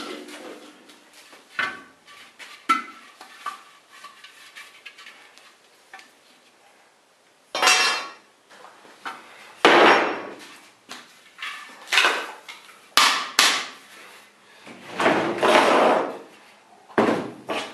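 Hard objects being handled and knocked together: a series of clanks and knocks mixed with several longer scraping sounds, irregularly spaced.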